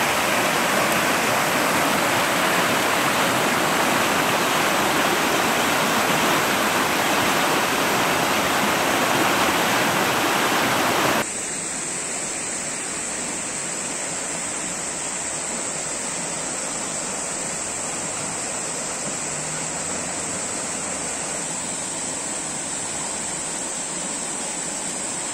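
Muddy floodwater rushing in a steady, full torrent. About eleven seconds in, the sound drops abruptly to a quieter rush.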